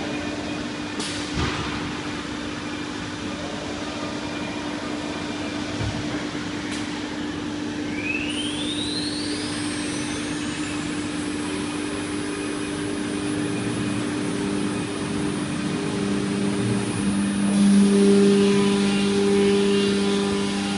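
CNC router with a linear automatic tool changer: a few sharp clicks from the tool change, then the spindle whine rises steeply in pitch as it spins up. Over a steady machine hum, new steady tones come in about halfway and grow loudest near the end as the router moves into work on the board.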